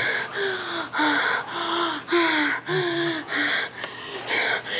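A woman's breathy moans and gasps, about two a second, each falling in pitch, with heavy breathing between them.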